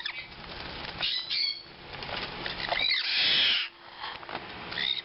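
Young sun conures and a blue-crowned conure flapping their wings and scuffling on a perch, with a few short chirps. A louder, harsh rasp comes about three seconds in.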